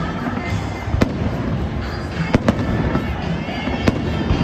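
Fireworks bursting: four sharp bangs, two of them close together in the middle, over a steady rumble of the show, with background music.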